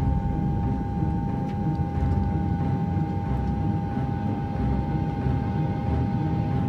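Steady low rumble of a jet airliner in flight, with a constant high hum held over it.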